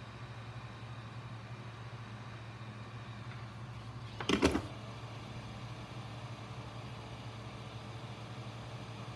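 Steady low hum, with one loud clunk about four seconds in: a handheld heat gun being set down on the workbench after shrinking heat-shrink tubing.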